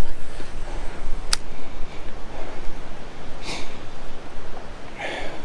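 Wind buffeting the microphone at the pond's edge, a steady low rumbling hiss, with a single sharp click about a second in and two brief rustling swells later on.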